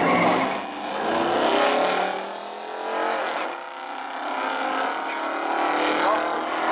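Two classic muscle cars launching off the drag-strip start line and accelerating hard away down the track, their engines rising in pitch, dropping and climbing again a couple of times.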